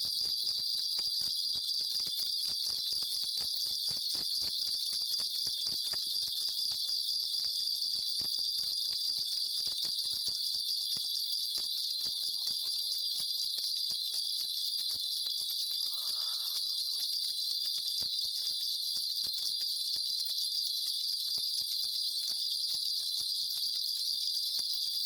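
Korean shaman's ritual bell cluster (mugu bells) shaken without pause, a steady dense jingling, as she calls on her spirit for a divination reading.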